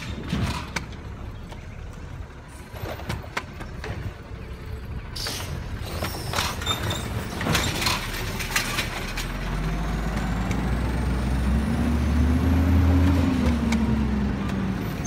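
Heil automated side-loading garbage truck pulling up to the curbside carts: its engine grows louder and rises in pitch about two-thirds of the way through, then drops back. A few sharp knocks and clicks come in the first half.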